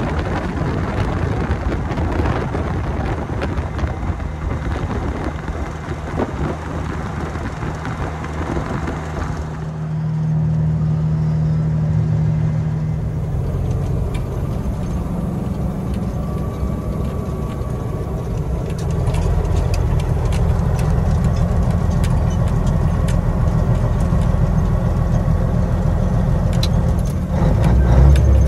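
Semi truck's Caterpillar 3406B diesel engine running on the road, heard from inside the cab with tyre and wind noise. About ten seconds in the wind hiss falls away and the low engine drone comes forward. The drone grows heavier about nineteen seconds in, with a louder low rumble near the end.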